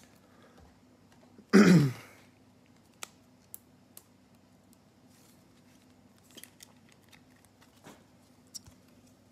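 A man clears his throat once, briefly, about a second and a half in. After it come scattered faint clicks and ticks from cards and packs being handled, over a low steady hum.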